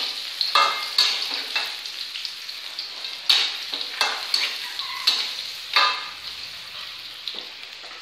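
Tempeh, sliced shallots and chillies sizzling in oil in a metal wok, with a spatula stirring and scraping against the pan about once a second; the strokes thin out near the end.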